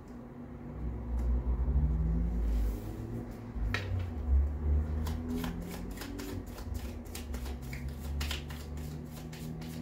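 Tarot deck being shuffled by hand, the cards clicking and slapping in a quick, uneven patter from about four seconds in. Before that come low rubbing and bumping sounds as the cards are picked up and squared.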